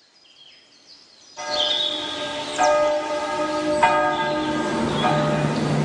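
Church bell tolling: four strikes about a second apart, each ringing on over a low hum, after a second of faint high chirps.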